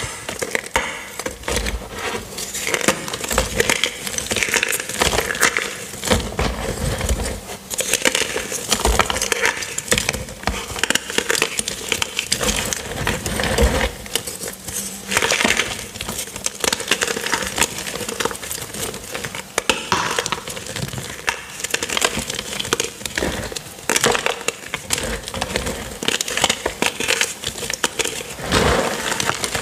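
Purple-dyed gym chalk blocks dusted with cornstarch being squeezed and crumbled by hand: a dense, unbroken run of crunching and crackling as the pieces break and grind into powder.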